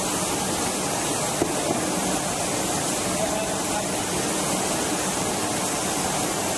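Steady running noise of a screen printing line's belt conveyor and machinery: an even noise with no distinct strokes or rhythm.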